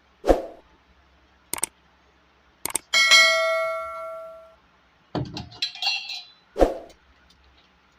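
Hard metal parts being handled and knocked together: a few sharp knocks, then one ringing metallic clang about three seconds in that fades over a second or so, followed by a short clatter and a last knock.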